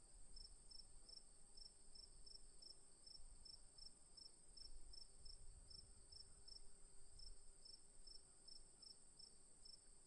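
Crickets chirping faintly: a steady high trill together with a second, pulsed chirp repeating about three times a second.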